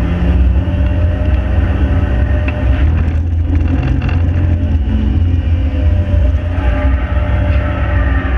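Ford 1.7 Puma four-cylinder engine in a Fiesta, running hard under load at speed. The engine note eases briefly about three seconds in, then builds again.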